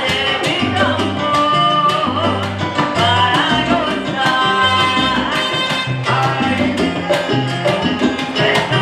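Salsa band playing live: piano, bass, congas, bongo, timbales, trumpet and trombone, with a steady percussion beat under held horn lines.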